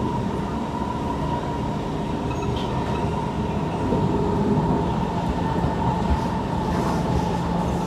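Kawasaki C151 metro train running at speed, heard from inside the carriage: a steady rumble of wheels on rail with a constant high whine held at one pitch.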